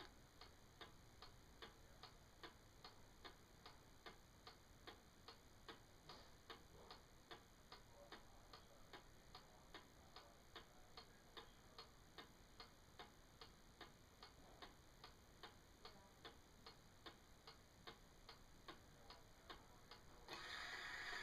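Wind-up pendulum mantle clock ticking quietly and evenly, about two and a half ticks a second. Near the end a faint whirring rises under the ticks as the striking mechanism starts to run just before it strikes the hour.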